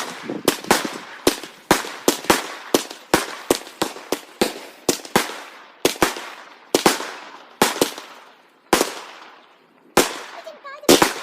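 Fireworks going off in a rapid run of sharp bangs, each with a short fading tail. They come several a second at first and thin out to about one a second later on.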